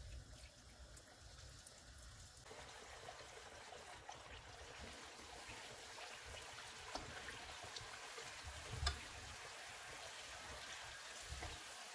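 Hot oil sizzling faintly around keema kachoris deep-frying on a low flame, the sizzle growing a little fuller about two seconds in. A few light clicks of a slotted spatula and spoon turning them in the pan, the loudest about three-quarters of the way through.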